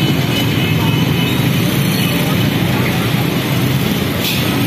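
Busy street traffic: motorcycle engines running and passing close by, with people's voices mixed in.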